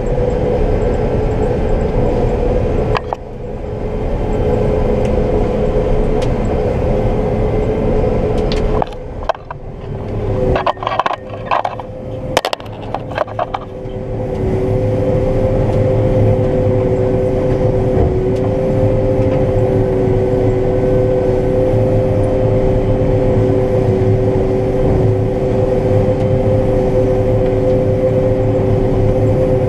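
Combine harvester running under load while cutting soybeans, heard from the cab: a steady drone with two held tones over a low rumble. About nine seconds in, the drone briefly drops away and a run of clicks and knocks is heard, then the steady running returns around fourteen seconds in.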